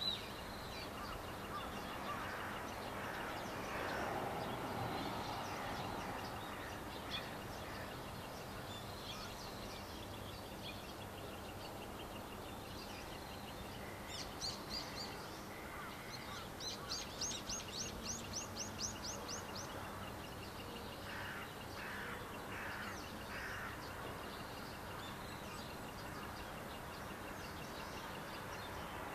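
Birds calling over steady outdoor background noise. About halfway through there is a quick run of about a dozen short, high chirps, about five a second, followed shortly by a few lower calls. A faint steady high tone runs underneath.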